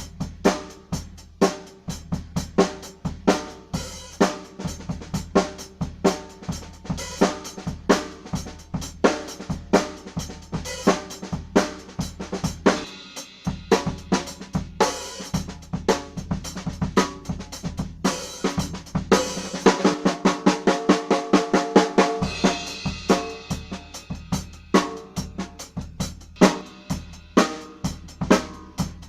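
Drum kit played in a steady groove for a snare drum sound check: sharp snare hits over bass drum, hi-hat and cymbals. About two-thirds through, the bass drum drops out for a couple of seconds under a quick run of ringing strokes.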